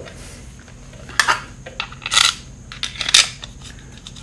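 Three short metallic clinks and jingles about a second apart, as the case saver and its screws are handled against the engine case.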